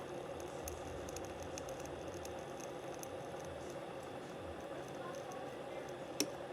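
Ninja CM401 drip coffee maker brewing: a steady hiss with faint scattered crackles and drips, and one sharp click about six seconds in.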